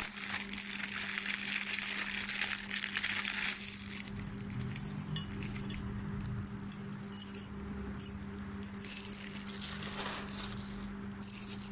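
A clear plastic bag crinkling for the first three and a half seconds or so as bangles are pulled out of it. Then metal bangles and beaded bracelets clink and jingle against each other in the hand, in scattered sharp clicks, over a steady low hum.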